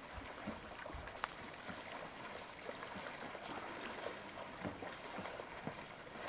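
Kayak paddles splashing faintly in the water as they are stroked, with one sharp click about a second in.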